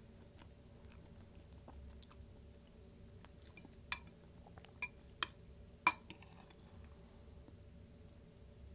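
Close-miked eating of a chicken bowl: faint chewing and mouth sounds with small clicks, and four sharp clicks between about four and six seconds in, the last and loudest ringing briefly.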